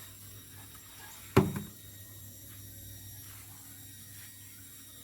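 A single sharp knock about a second and a half in, with a short low ring after it, over a faint steady low hum.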